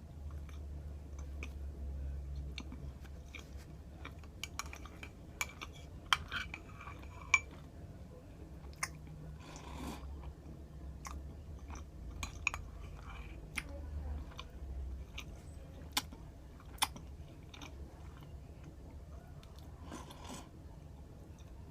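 A person chewing and biting food close to the microphone, with many short, sharp mouth clicks scattered through it. A low steady hum runs underneath.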